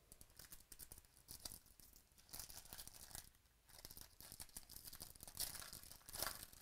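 Foil wrapper of a Donruss Optic baseball card pack crinkling and tearing as it is ripped open by hand, in several crackly bursts.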